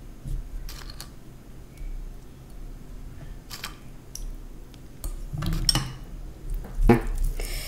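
Metal spoon clinking and scraping in a glass bowl as kadhi is scooped out and spooned over a plate of rice: a few separate clinks and clatters, the loudest about seven seconds in.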